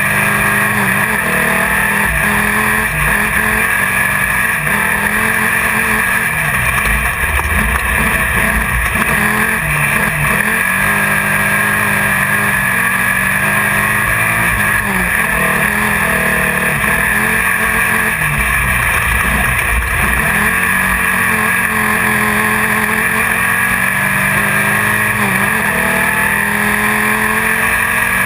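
Race car engine running hard without a break, heard from inside the car, its revs rising and falling as the car is driven through the course.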